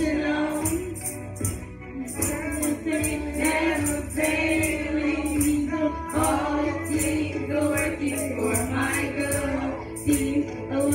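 Gospel song sung by young voices through microphones over musical accompaniment, with steady crisp percussion ticking on the beat.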